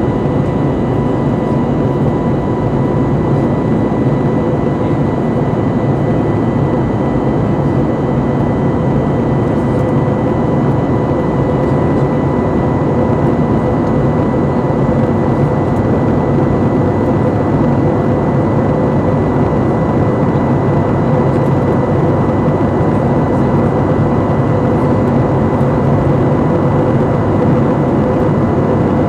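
Steady cabin noise inside an Airbus A320 in flight: the rush of air and the drone of the jet engines, with a thin, steady whine over it.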